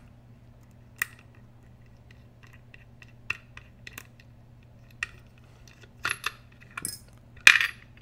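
Light metallic clicks and ticks of a steel lock pick working at the back of a brass pin-tumbler lock cylinder to free its tailpiece. In the last two seconds come louder clinks as small metal parts come loose, the loudest about seven and a half seconds in.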